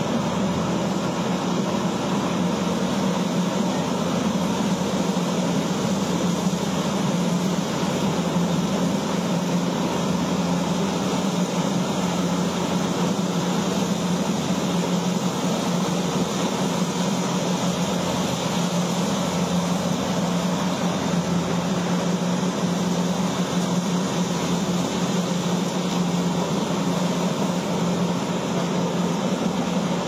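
Kubota combine harvester running with a steady drone as it cuts through standing maize stalks.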